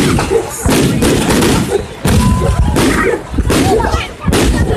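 Aerial fireworks exploding in quick succession: several loud bangs roughly a second apart, each followed by a lingering burst of noise.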